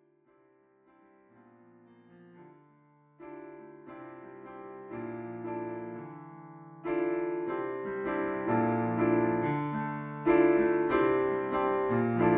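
Solo piano playing a bluesy piece, beginning very softly with single notes and growing louder in steps into fuller chords.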